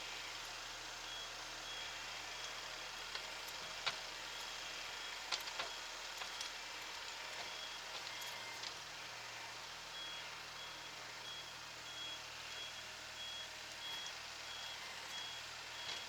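A tractor's reversing buzzer beeping steadily, about two beeps a second, over the running Kubota SL28H diesel engine as the tractor backs up. The beeping stops for a few seconds in the middle and starts again, with a few sharp knocks from the loader and bucket.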